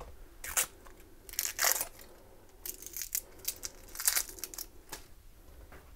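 Dry outer skin being peeled off halved onions by hand: a series of short, irregular papery rustles and tears.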